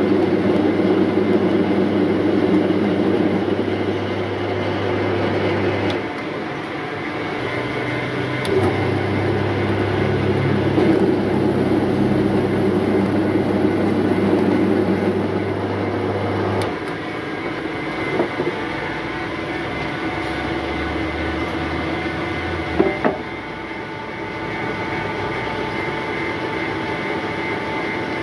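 Natrawee rice seed sorting machine running: a steady electric-motor drone whose low hum shifts in pitch about six seconds in and again near seventeen seconds. A few sharp clicks come in the second half.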